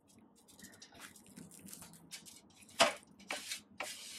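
Garlic naan torn apart by hand: a run of small dry crackles, then a sharp click and brief rasping as the torn piece is pushed through curry sauce on a metal tray.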